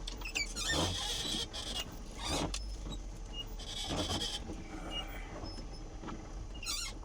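A vehicle running on a snow-packed, slippery slope, with a steady low engine hum, scuffing noises and short high squeaks of tyres slipping on the snow.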